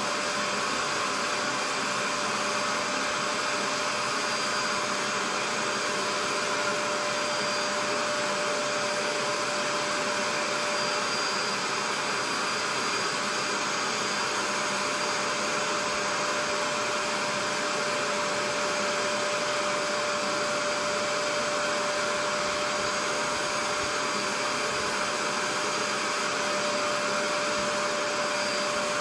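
Portable upholstery steam cleaner running steadily, a steady whine over a rush of suction, as its hand tool is drawn over a fabric recliner seat.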